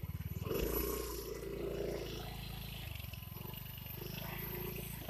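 Small engine running. It picks up revs about half a second in, then holds a steady, even drone.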